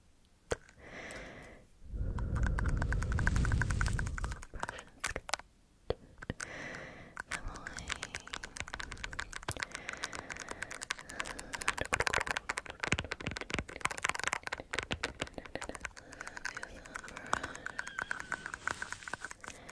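Close-miked fingernail tapping and scratching on the camera, a fast, dense run of small crisp clicks. From about two to four seconds in, a louder low rubbing swish comes first, like something brushed across the microphone.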